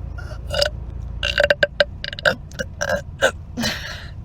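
A young woman burping a rapid string of about ten short, pitched burps, one after another.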